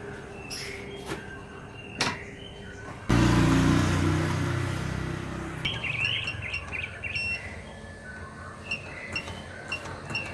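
A sudden loud low rumble about three seconds in that fades away over the next two seconds, then birds chirping in short repeated notes.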